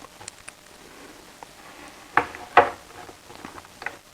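Two short knocks about half a second apart, with a few light clicks around them, from tools or parts being handled on a workbench.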